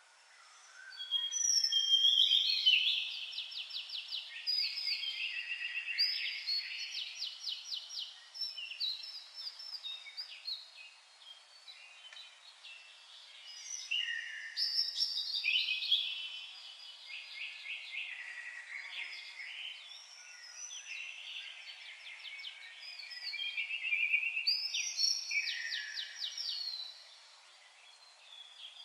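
Songbirds singing in overlapping phrases of rapid trills and chirps, swelling into louder bouts of song near the start, about halfway through and near the end.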